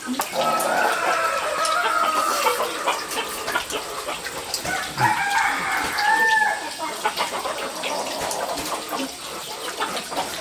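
A rooster crowing: two long calls, the first near the start and the second about halfway through.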